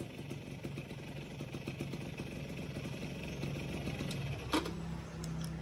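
Yamaha F1ZR two-stroke engine idling after a rev, its carburetor's jet needle on the leanest setting, number 1. A single sharp click about four and a half seconds in.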